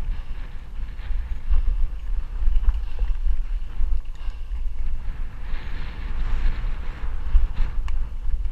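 Wind rushing over the microphone of a mountain bike's ride camera, over the tyres rolling on dirt and small rattles and clicks from the bike. A louder hiss rises about five and a half seconds in and fades near the end.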